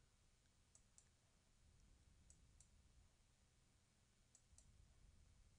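Near silence broken by three faint pairs of computer mouse clicks, one pair about every second and a half.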